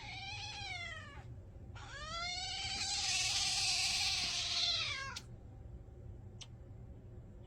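A cat meowing twice: a short meow, then a longer, louder drawn-out meow that rises and falls in pitch.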